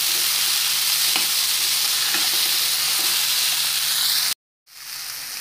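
Ivy gourd pieces sizzling in hot coconut oil as they are stirred with a spatula, with a few light scrapes of the spatula on the pan. The sizzle cuts out for a moment about four seconds in and comes back quieter.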